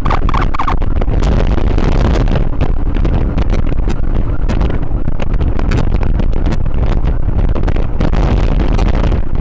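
Motorcycle riding at speed, with steady wind rush on the microphone over road and engine noise. A brief snatch of a wavering siren right at the start.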